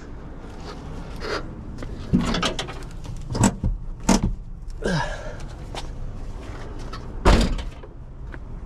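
Metal clunks and knocks from a stripped Mustang body shell being handled, including a door-like clunk, with one heavy thump about seven seconds in, over a low steady rumble.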